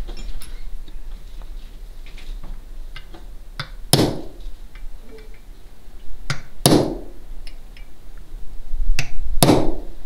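A hammer tapping a brass punch to drive the knurled steel pins out of a single-shot shotgun's receiver, right to left. There are four sharp metallic strikes with a short ring after each: one about four seconds in, one near seven seconds, and two close together near the end, with fainter clicks of the punch being set between them.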